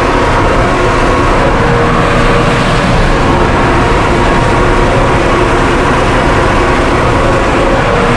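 Case JX95 tractor's diesel engine running steadily under load while mowing, heard from inside the cab.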